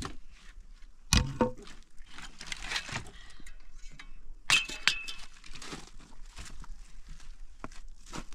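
Hard objects being handled, clinking and knocking, with sharp knocks about a second in and twice more a little past four seconds.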